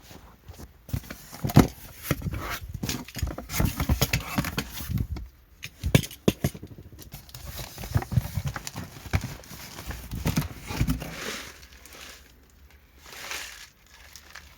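Packages being unboxed and handled: a quick, irregular run of knocks and thumps with crinkling packaging for about ten seconds, then a short rustle near the end.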